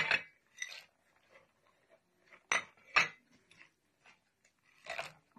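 Dry pieces of dried amla dropped into a plastic tub holding soapnuts: a few sharp clicks and clatters, the loudest at the start and then about two and a half, three and five seconds in, with faint ticks between.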